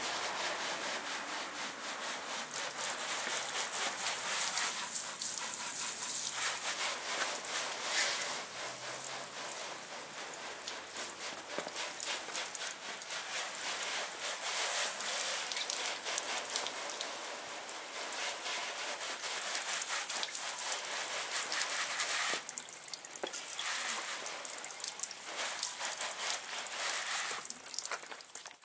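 Garden hose spraying water onto a car's hood and windshield to rinse it during a wash, a steady hiss and patter that swells and eases as the spray moves and drops off briefly a few seconds before the end.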